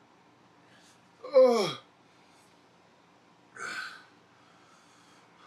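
A man's loud "ooh" with a steeply falling pitch about a second in, then a sharp breathy exhale near the four-second mark: pained reactions to the burning heat of an extremely hot chip.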